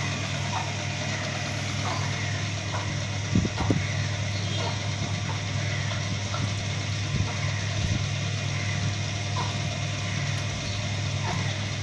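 Steady, unchanging low machine hum, like an engine running at idle, with two sharp knocks about three and a half seconds in and faint short chirps scattered over it.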